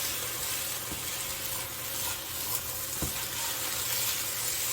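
Vegetables and egg sizzling in a frying pan as they are stir-fried: a steady hiss with a couple of light knocks of the utensil against the pan.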